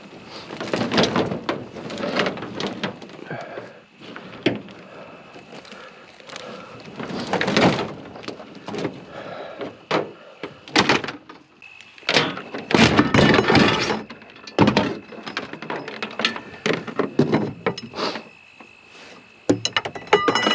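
Loose scrap metal being handled and tossed about: an irregular run of clunks, thuds and rattling scrapes, some in quick clusters.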